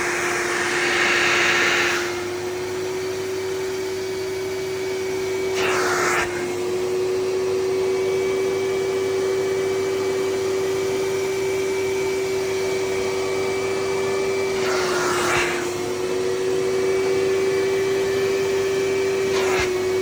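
Vacuum cleaner running steadily with a constant motor whine, used on a flood-soaked car interior. Three brief rushes of air come about a third of the way in, about three quarters of the way in and near the end, the whine dipping slightly with the first two.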